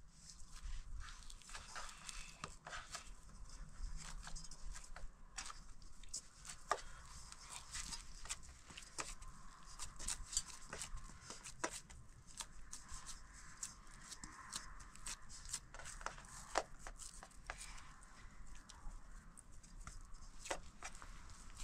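Irregular small clicks, taps and crackling rustles, like hands working with material.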